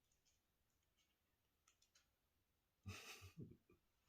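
Near silence: quiet room tone with a few faint clicks, then a brief rustle with several soft thumps about three seconds in.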